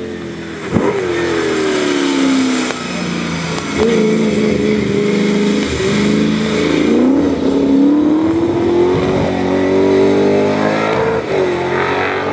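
Touring race car engine at full throttle on a hill climb, its pitch climbing and dropping several times through gear changes, with one sharp crack about a second in.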